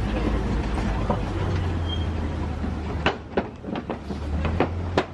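Safari truck's engine running steadily as it drives, with a run of sharp knocks and clacks from about three seconds in as the truck rolls over the bridge.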